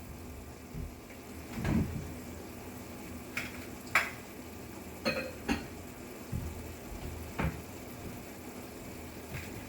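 Kitchen clatter: about half a dozen separate knocks of dishes and utensils, one ringing briefly, over a faint steady background.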